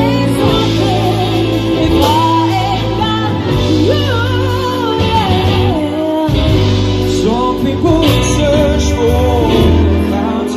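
Live pop band: a female and a male vocalist singing over electric guitar, drums and a steady bass line.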